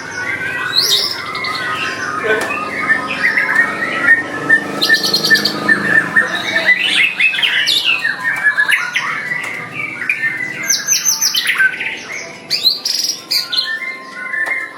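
White-rumped shama singing a long, varied song of rapid whistles, sweeping notes, trills and harsh buzzy notes, with no pause.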